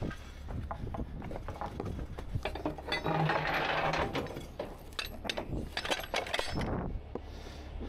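Steel recovery chain, hooks and winch rigging clinking and rattling as they are handled, a run of irregular metal clicks and clinks with a denser rattle about three seconds in.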